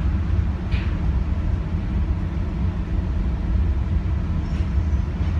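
Airport shuttle train running along its elevated guideway, heard from inside the lead car: a steady low rumble with no breaks.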